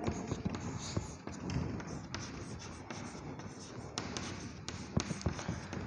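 Chalk writing on a chalkboard: quiet scratching of the chalk across the board with light taps as strokes begin. There are a few sharper taps near the end.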